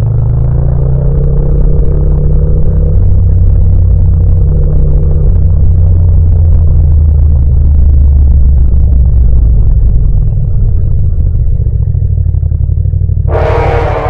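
Yamaha MT-07's parallel-twin engine running steadily at low revs under the rider, easing off about ten seconds in as the bike slows. A short, harsh burst of noise cuts in near the end.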